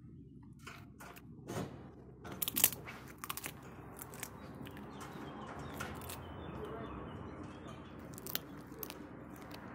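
Irregular sharp crunching clicks of a dog gnawing a chew, loudest between about two and three and a half seconds in, with a few more near the end, over a low steady background noise.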